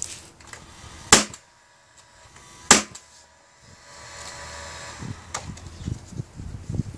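A nail gun fires twice, about a second and a half apart, driving nails into plywood, each a sharp shot with a short ring. These are followed by a quieter steady hum and low knocks of wood being handled.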